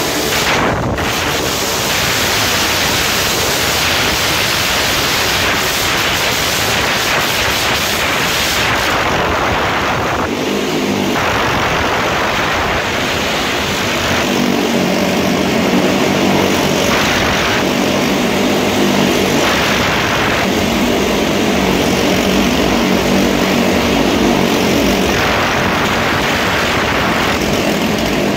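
Motorcycle engines running hard and continuously as two motorcycles circle the vertical wall of a wall-of-death drum. A steadier held engine note comes through from about halfway.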